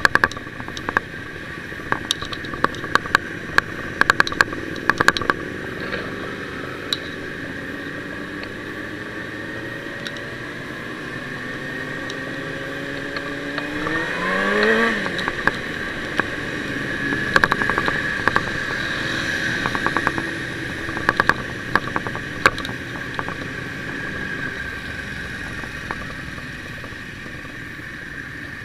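Motorcycle engine running on the move, heard from the bike itself, with a steady whine beneath it. The engine pitch climbs as the bike accelerates, rising sharply about fourteen seconds in. Clusters of sharp clicks come near the start and again later.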